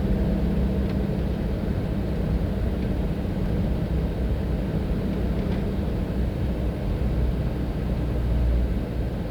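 Steady low drone of a car's engine and tyres on the road, heard while driving.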